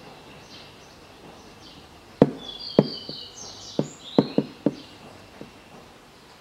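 A quick run of sharp clicks and knocks from the loosened plastic door trim panel being worked by hand, about seven in two and a half seconds starting about two seconds in. Birds chirp in the background.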